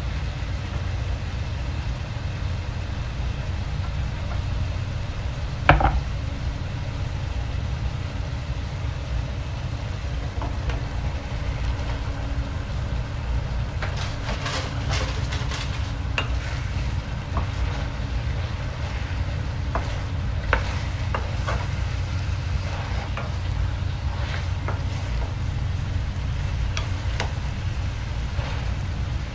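Food sizzling in a wok over a steady low rumble, with one loud knock about six seconds in. In the second half a wooden spatula scrapes and taps repeatedly against the wok as fish and sauce are stirred.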